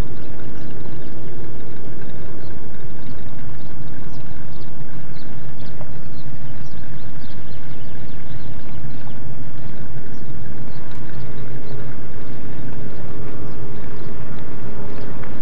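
Old pickup truck's engine running with a steady low hum, its note shifting higher about eleven seconds in.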